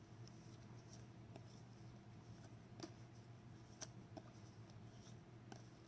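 Near silence: a low steady hum with faint, scattered clicks and ticks of trading cards being handled and shuffled through.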